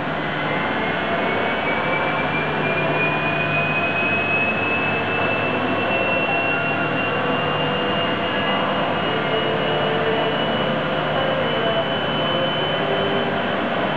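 MFD Hoesch DR 1250 N CNC wheel lathe running with a large steel wheel disc turning in its chuck. It makes a loud, steady machine noise, and a thin whine rises slowly in pitch over the first half and then holds steady.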